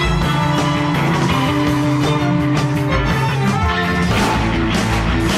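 Rock music soundtrack with sustained guitar-like notes over a bass line and a steady beat; the bass and drums hit harder about four seconds in.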